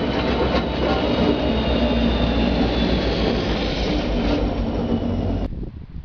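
Vossloh Euro 4000 diesel locomotive passing close below, its engine running steadily with wheel and rail noise and a faint high whine over it. The sound cuts off suddenly near the end.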